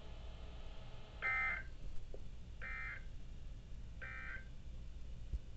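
Emergency Alert System end-of-message signal: three short bursts of SAME digital data tones, evenly spaced about a second and a half apart, marking the end of the alert.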